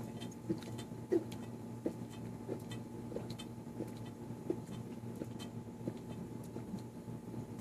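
Liquid sloshing and gurgling in a full, bloated stomach: short wet pops that come about one and a half times a second, the strongest about a second in.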